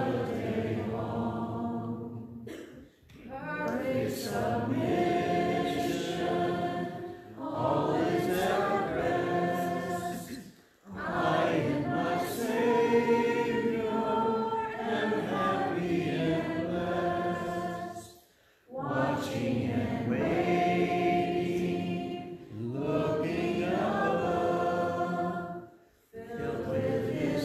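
A woman singing a hymn solo and unaccompanied, in long phrases broken by brief pauses for breath.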